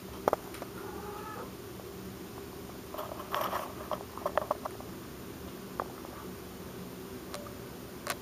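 Tabby house cat making two short, soft calls, one about a second in and a louder one about three seconds in, among a few sharp clicks and taps. The loudest click comes just after the start.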